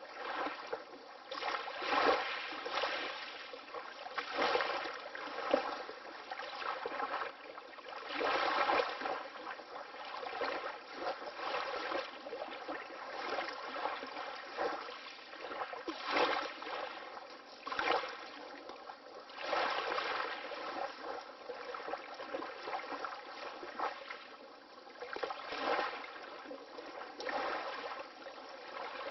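Water lapping gently, a continuous splashing wash that swells in small irregular surges every second or few.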